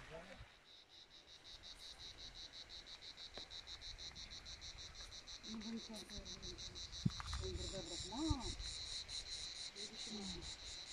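An insect singing in rapid, evenly spaced high-pitched pulses, faint at first and louder in the second half. Faint distant voices and a single light knock about seven seconds in.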